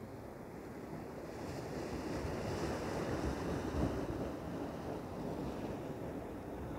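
Ocean surf washing and breaking against the shore rocks, swelling to its loudest about halfway through and then easing.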